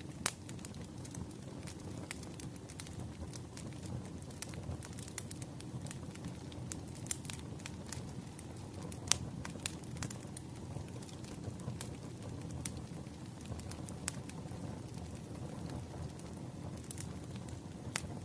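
Burning firewood crackling, with irregular sharp pops and snaps over a steady low rumble of the flames.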